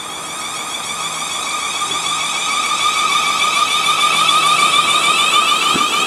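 Class 450 Siemens Desiro electric multiple unit pulling away, its traction inverters and motors giving a steady whine of several tones with a fine pulsing texture, growing louder as the train passes.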